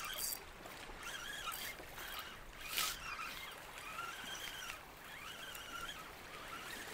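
Fishing reel whirring faintly in short spells while a hooked fish is fought, the pitch rising and falling with each spell, over a soft hiss. A brief rush of noise comes about three seconds in.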